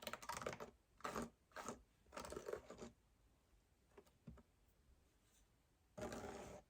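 Wool fibre and sparkle being worked on a blending board's carding cloth, heard as faint scratchy rustling strokes. Four short strokes come in the first three seconds and one longer one near the end.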